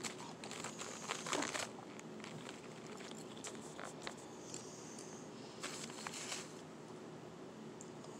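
Powdery shaved ice crunching and crackling in two short bursts, a louder one about a second in and another around six seconds, with scattered faint crackles between.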